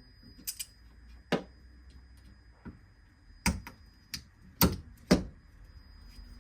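Irregular sharp clicks and knocks from hand work on a car's windscreen wiper arm and its fittings, about half a dozen, the loudest pair coming near the end.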